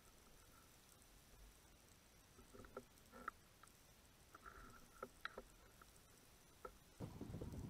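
Near silence underwater, broken by a few faint, scattered clicks and knocks. About seven seconds in, a louder steady rushing noise sets in.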